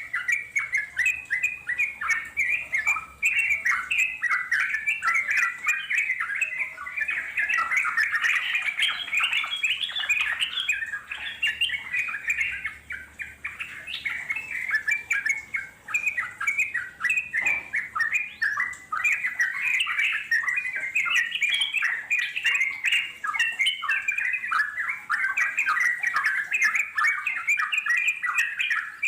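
Yellow-vented bulbul (trucuk) song: a long, unbroken run of fast chattering notes, the 'ngeropel' style of trucuk singing.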